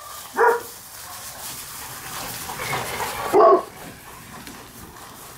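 A dog barking twice, once about half a second in and again about three seconds later.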